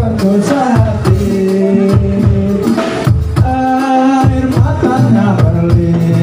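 Live Javanese kubro siswo dance music: drums beating steadily under a sung melody with held notes.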